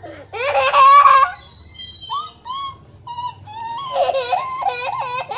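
A little girl and a man laughing together: a loud burst of the girl's high-pitched laughter about half a second in, then a run of quick, rhythmic laughs near the end.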